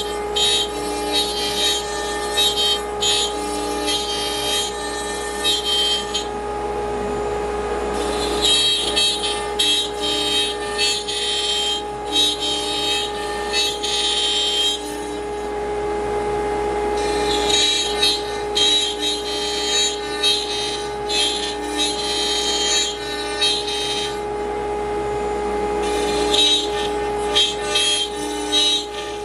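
CNC router's water-cooled spindle running with a steady high whine while its bit cuts a mahogany inlay plug in repeated passes: stretches of high, gritty cutting noise several seconds long, broken by short pauses about 6, 15 and 23 seconds in, when only the spindle whine is left.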